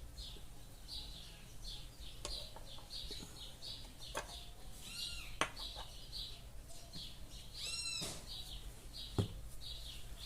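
A bird chirping repeatedly, about two short chirps a second, with a louder arching call near the end. A few sharp clicks are heard along with it.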